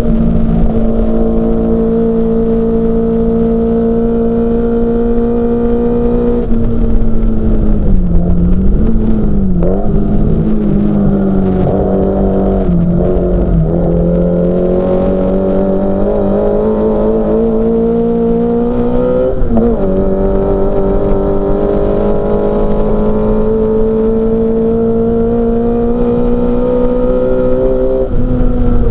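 Racing Mini Cooper S's four-cylinder engine running hard at high revs. It holds a steady note, dips and wavers about eight to thirteen seconds in as the car slows through a section, then climbs slowly, with a quick break about twenty seconds in, as on a gear change.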